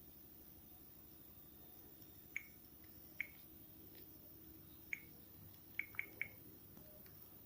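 Faint, short clicks from a Samsung phone being operated, six in all, irregularly spaced, the last three in quick succession. Under them is a low steady hum.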